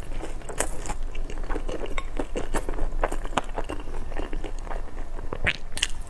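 Close-miked chewing and wet mouth sounds of a person eating pan-fried pork buns, with light clicks of chopsticks against a glass sauce bowl and a bite near the end.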